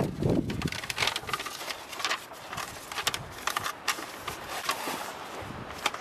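Irregular clicks, knocks and rustling as the spare-tire tools are handled in a minivan's rear storage compartment, with one sharp click near the end.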